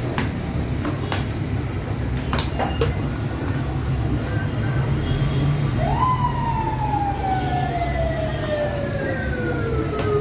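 A siren-like tone comes in about six seconds in, rises quickly, then slides slowly and steadily down in pitch. Under it are a steady low hum and a few sharp slaps of feteer dough being thrown and stretched on a marble counter.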